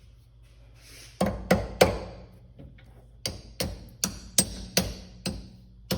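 A hammer tapping copper jaw pads to bend their tabs down over the lathe chuck jaws: three quick, sharp strikes about a second in, then a steady run of about seven more at roughly three a second.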